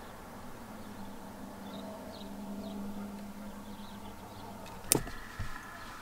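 Low steady hum of a car interior, then a single sharp click near the end with a softer knock just after, as the lid of the shift knob's presentation box is pulled off.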